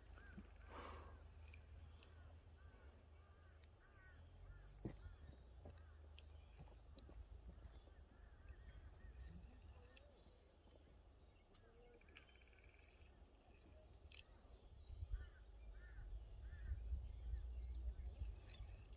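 Quiet outdoor ambience: scattered short bird chirps over a steady high insect drone, with a low rumble that swells near the end.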